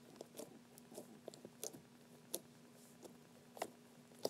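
Small, irregular clicks and pops of yellow glitter slime being folded and pressed with the fingertips, a few of them louder than the rest. A faint steady hum runs underneath.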